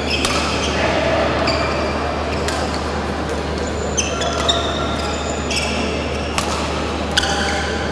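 A badminton rally: rackets strike the shuttlecock with sharp clicks every second or two, and shoes squeak in short high chirps on the court mat. A steady low hum runs underneath.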